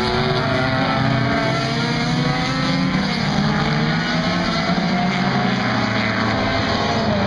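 Several race car engines running at high revs at once, loud and continuous, their pitches drifting up and down as the cars go past.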